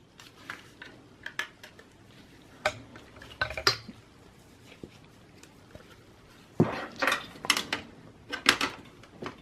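Light clicks and clatter of parts being handled inside an open desktop PC case, as a SATA cable and solid state drive are fitted. The clicks are scattered at first, then a denser run of sharper clatters comes about two-thirds of the way through.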